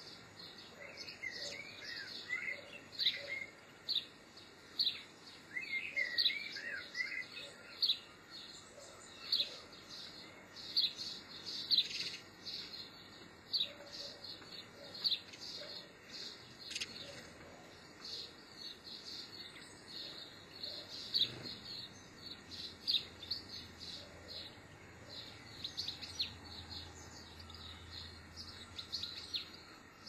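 Small songbirds calling: a steady stream of short, sharp chirps, with bursts of warbling twitter about a second in and again around six seconds.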